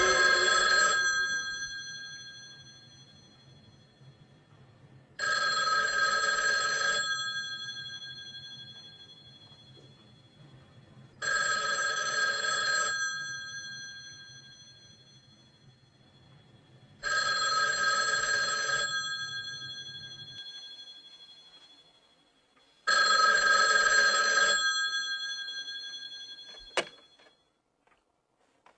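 Desk telephone's bell ringing in the standard pattern: about two seconds of ringing, then a pause of about four seconds, five rings in all, each with a fading tail. Near the end there is a single sharp click as the handset is lifted off the cradle, and the ringing stops.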